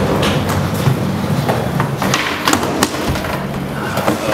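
A skateboard rolling across a smooth indoor floor, its wheels rumbling steadily, with several sharp clacks and knocks along the way.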